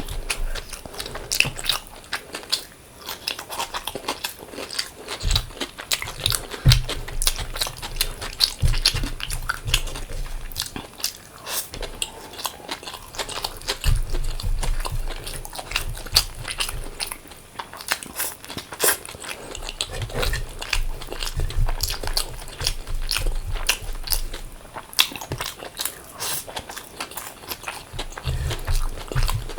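Close-miked eating: a person biting and chewing food, with many short, irregular wet clicks and crunches and intermittent low thuds.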